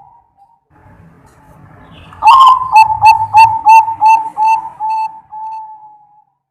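Zebra dove (perkutut) cooing: a loud opening note about two seconds in, then a quick run of about eight short coos, ending in one longer drawn-out note.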